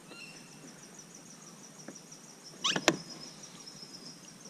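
An insect chirping steadily in high, even pulses, about six a second. About two-thirds through, a brief rattling burst ends in a single sharp knock, the loudest sound.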